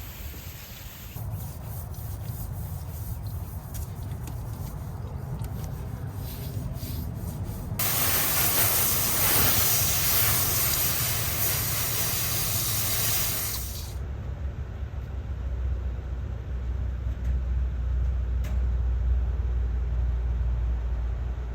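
Liquid sprayed onto an air-conditioner coil: a loud, even hiss for about six seconds in the middle that cuts off suddenly. A low hum runs under it and becomes a heavier rumble after the spray stops.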